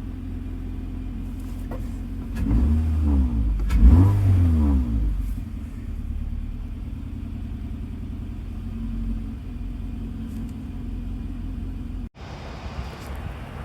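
Honda Fit's four-cylinder engine idling steadily after a no-start was fixed with a new starter. It is revved twice in quick succession about two to five seconds in, then settles back to idle. The sound breaks off abruptly near the end.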